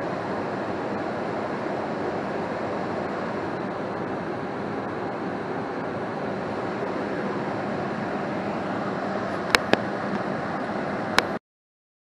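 Goodman 80% single-stage gas furnace running, fired, with its X13 blower motor moving air: a steady, even rush. Near the end come three sharp clicks, two close together and one about a second and a half later, and then the sound cuts off suddenly.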